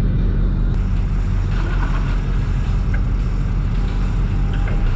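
A boat's engine running steadily with a low drone under the cockpit.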